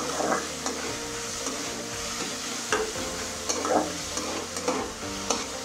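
Ground onion and garlic paste sizzling as it fries in a little hot oil in a nonstick pan, with a spatula scraping and stirring it across the pan several times.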